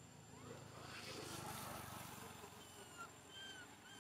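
Faint outdoor background with a soft rushing swell about a second in, then a few short, high chirping animal calls in the second half.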